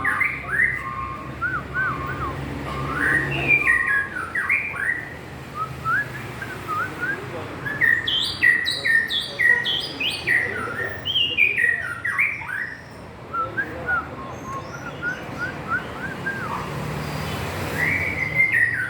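White-rumped shama (murai batu) singing a long, varied song of clear whistles, slurred phrases and quick runs of notes. The singing thins out for a few seconds past the middle and picks up again with a loud phrase near the end.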